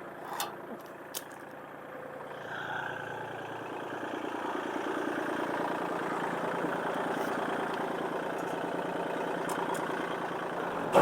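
Tractor engine running steadily, growing louder about two seconds in and then holding; a few sharp clicks come just before it.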